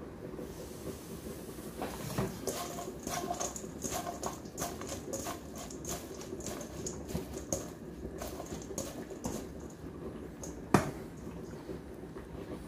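Hands tossing shredded raw vegetables in a stainless steel bowl: a run of soft rustles and light clicks against the metal, with one sharp knock on the bowl near the end.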